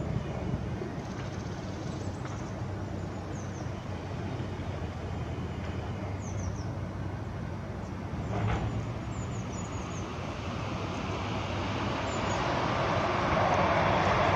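Outdoor ambience of a steady low rumble of distant traffic, with a few faint high chirps. A broad rushing noise of a passing vehicle builds over the last few seconds and becomes the loudest sound.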